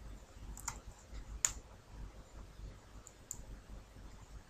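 A few faint computer mouse clicks, sharp and separate, the second one loudest.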